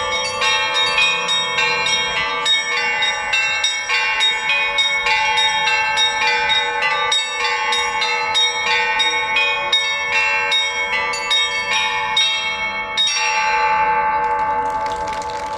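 Russian Orthodox church bells rung by hand in a fast peal (trezvon), with quick overlapping strokes on several bells of different pitches. About 13 seconds in, the rhythm stops on a final stroke, and the bells are left to ring out and fade.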